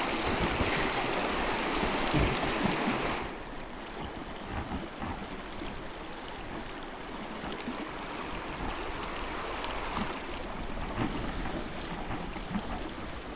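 Flowing river water, a steady rushing noise. It is louder for about the first three seconds, then drops suddenly to a lower, even rush.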